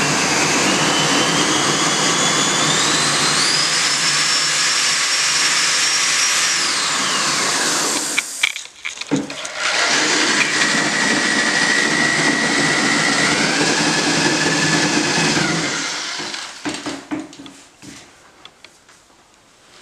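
Corded drill with a mixing paddle churning thinset mortar in a plastic bucket, run in two spells: the motor's whine steps up in pitch as the trigger is squeezed harder, then falls away as it winds down. A few light knocks follow near the end.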